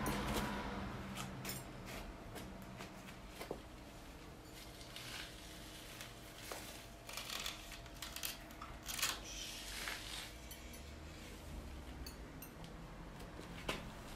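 Glazed ceramic cups being handled on a concrete floor: small clinks as they are picked up and set down, and several short scraping and rubbing sounds against the ware.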